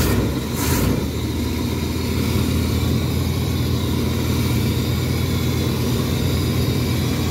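Motorhome engine running steadily with a deep hum. Two short bursts of hiss come right at the start.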